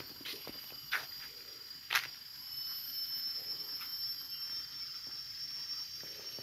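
Steady high-pitched drone of insects in tropical greenery. A few footsteps on leaf-strewn ground are heard in the first two seconds.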